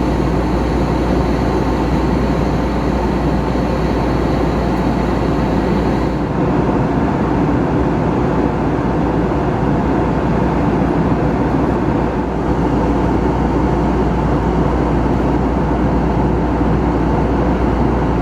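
Airbus A321 cabin noise on approach: the steady drone of the engines and rushing air heard from inside the cabin, with a faint high whistle that fades out about six seconds in.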